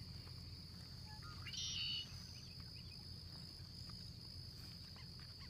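Marsh ambience: a steady, high-pitched insect drone over a low, steady rumble, with one short bird call about one and a half seconds in.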